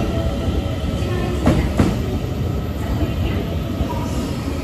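Taiwan Railways EMU900 electric multiple unit rolling into the station at low speed, its cars passing with a steady rumble of wheels on rail. The wheels knock twice over rail joints about a second and a half in.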